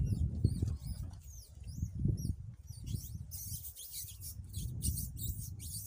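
Birds chirping in the bush, short curving calls at first, then a quick run of high twittering past the middle. Under them is low, uneven rustling and crunching as people move through dry brush.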